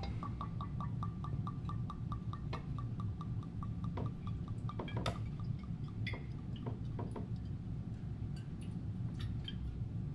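Whiskey glugging out of an upturned bottle into a glass decanter through its narrow neck, a quick regular glug about five times a second that fades after three or four seconds into irregular drips and a few sharper clicks.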